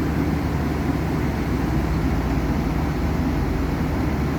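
Heavy vehicle's diesel engine running steadily, a low rumble with no change in pace.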